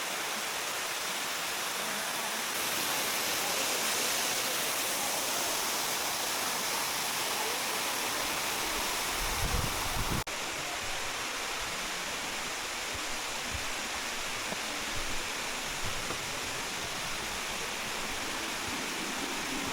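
Waterfall: a steady rush of falling water, with a brief low rumble and a sudden slight change in tone about halfway through.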